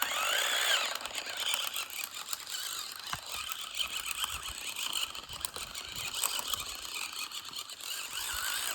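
Toy RC car running: its small electric motor whines up and back down in the first second, then a steady rattle of gears and plastic parts as it drives.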